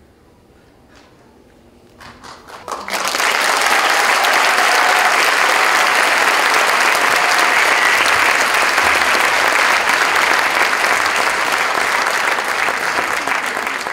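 Audience applauding. A few claps come in about two seconds in, and about a second later the applause becomes full and loud and holds steady.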